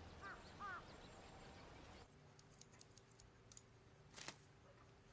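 Two faint bird chirps over quiet outdoor ambience, then a run of light, irregular clicks: scissors snipping hair during a haircut.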